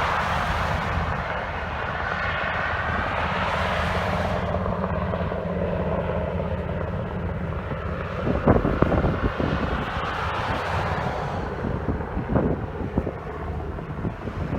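Aircraft engines droning steadily as a plane flies past, with a couple of short bumps partway through.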